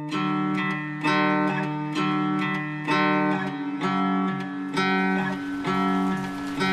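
Instrumental music: a plucked acoustic guitar playing chords, a new chord struck about once a second.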